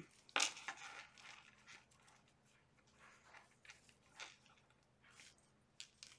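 Faint, scattered rustling and brushing of seam binding ribbon being tied into a bow against a fabric-covered journal, with one sharper rustle about half a second in.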